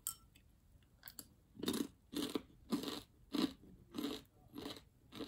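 Close-up chewing of crispy fried breaded cutlet, the coating crunching with each bite: about seven chews at a steady pace of roughly one every 0.6 seconds, starting about a second and a half in.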